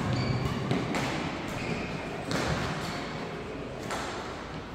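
Badminton rally: about half a dozen sharp racket hits on a shuttlecock, irregularly spaced, with short shoe squeaks on the court floor, ringing in a large echoing hall.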